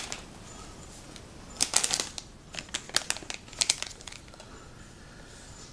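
Plastic anti-static bag crinkling as it is handled, in three short spells of crackle from about a second and a half to four seconds in.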